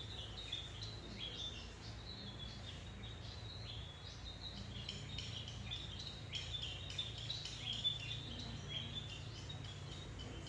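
Small birds chirping in quick, repeated short notes throughout, over a low steady hum.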